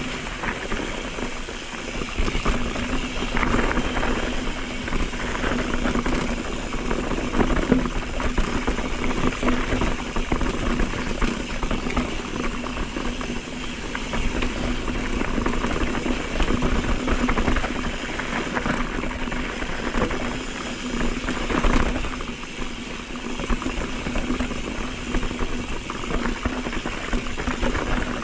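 Mountain bike riding fast over a rocky dirt fire road: tyres crunching on gravel and the bike rattling over the bumps, with wind rushing over the microphone.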